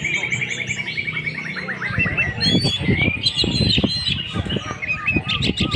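Orange-headed thrush singing a varied song. It opens with a fast, even trill, then breaks into a run of varied whistled phrases, with other lower sounds beneath from about two seconds in.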